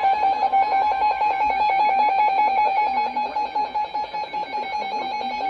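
Emergency Alert System attention signal: a loud, steady two-tone alarm with a rapid, even flutter in it.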